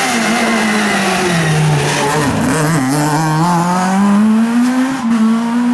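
Abarth Grande Punto rally car engine passing close through a tight bend: the revs drop as it slows into the corner, then climb steadily as it accelerates away.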